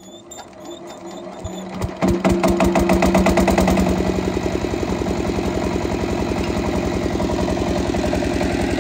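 An 8 hp single-cylinder diesel water-pump engine being cranked by hand. It grows louder, fires about two seconds in, then runs steadily with a rapid, even beat.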